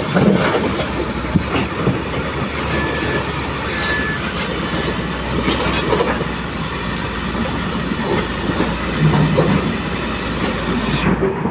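Heavy construction machinery running with a steady low rumble and dense, irregular clattering and rattling, typical of equipment working over old concrete.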